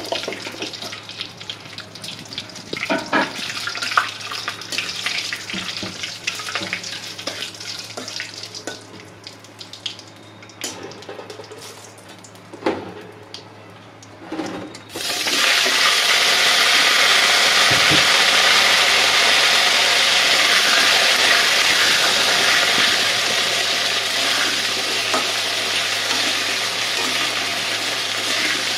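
Whole spices (dried red chillies, bay leaf, cumin seeds) crackling and popping as they temper in hot oil in an iron karahi, the crackle thinning out and growing quieter. About halfway through, cubed potatoes go into the oil and a loud, steady sizzle takes over.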